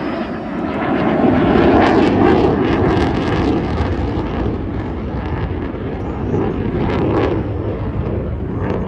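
Eurofighter Typhoon's twin Eurojet EJ200 turbofans: loud jet roar during its flying display, reaching its loudest about two seconds in and swelling again around seven seconds.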